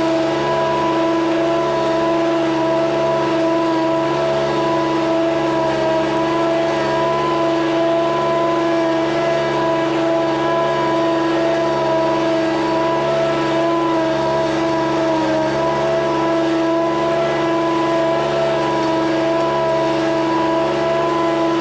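Small petrol engine of lawn-care equipment running steadily at constant speed, a loud, unchanging hum.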